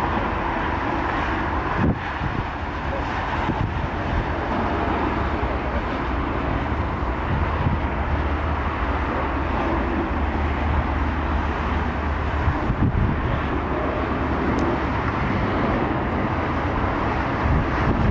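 Jet engines of taxiing twin-engine airliners, a Boeing 737-800 and an Airbus A320-family jet, running at taxi power as a steady rumble and rush, with gusty wind on the microphone.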